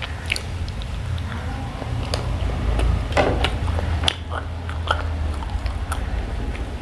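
Close-miked chewing and biting of food, with short wet mouth clicks and smacks scattered irregularly, over a steady low hum.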